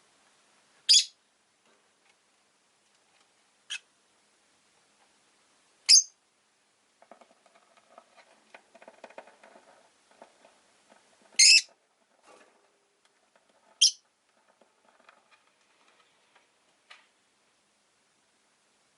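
Rosy-faced lovebird giving short, shrill single chirps, about six of them a few seconds apart. A faint crackling patter runs under them around the middle.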